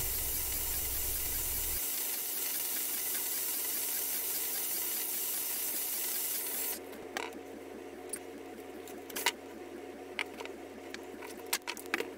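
Cordless drill running steadily, spinning a bolt to wind enamelled copper wire into an electromagnet coil. It stops about seven seconds in and is followed by a few light clicks and knocks of things being handled on a wooden workbench.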